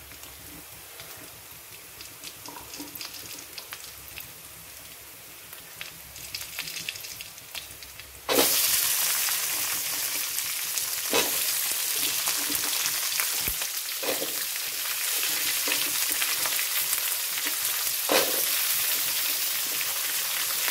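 Ginger, garlic and curry leaves frying in oil in a metal kadai, a soft sizzle under a slotted spatula. After about eight seconds the sizzle suddenly turns much louder as onions go into the hot oil, with a few sharp scrapes of the spatula against the pan.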